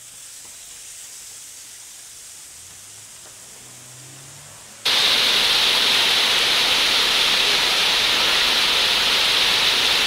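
Waterfall pouring, a loud steady rush of falling water that starts suddenly about five seconds in. Before it there is only a faint hiss with a faint rising hum.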